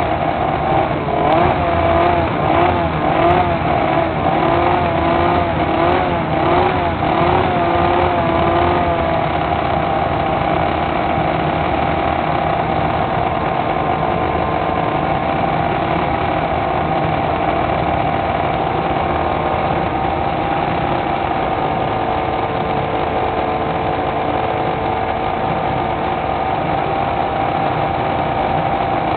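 Classic racing motorcycle engines idling, the throttle blipped up and down repeatedly for the first nine seconds or so before they settle to a steady idle.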